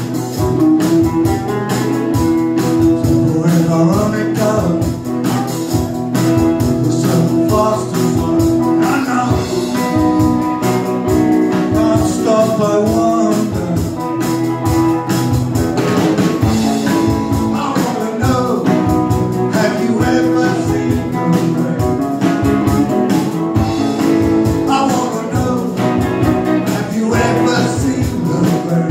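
Small live band playing a rock cover: strummed acoustic guitar and three-string cigar box guitar over a drum kit keeping a steady beat.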